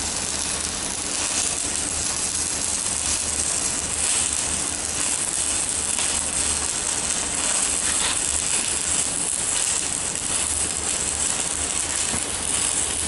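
Arc welding with a CNR 120 welding machine and a 4 mm stick electrode: the arc gives a steady, dense crackle and sizzle with a low hum underneath.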